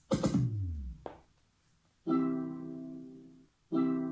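Divoom Voombox Power Bluetooth speaker's prompt sounds: a falling swoop just after it switches on, a short blip, then two identical ringing chime tones about a second and a half apart, each fading away. These are its signal that it is on and ready to pair with a phone.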